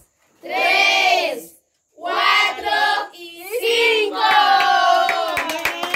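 Children's voices singing in drawn-out phrases, several voices together by the end, with hand clapping joining in about five seconds in.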